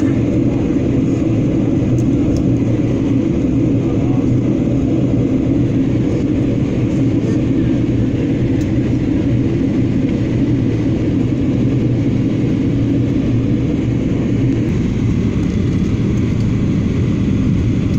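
Airliner cabin noise: a steady low rumble of engines and rushing air, heard from a window seat during the descent toward landing.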